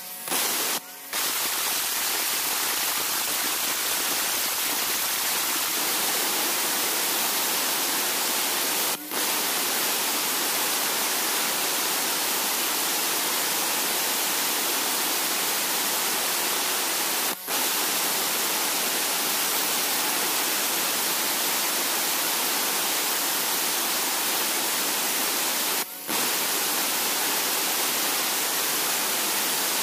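Electric angle grinder with an abrasive disc cutting grooves into a hard river-stone mortar, a loud steady grinding hiss. It breaks off for a split second three times, about every eight seconds.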